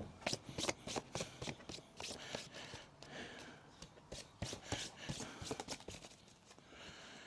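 Faint handling noises: a quick, irregular run of small clicks, taps and rustles.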